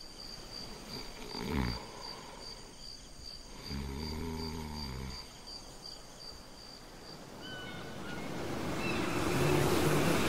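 Sleeping woman snoring: a short falling sound, then a longer low buzzing snore. Crickets chirp steadily, about four times a second, behind it. Surf noise swells in near the end.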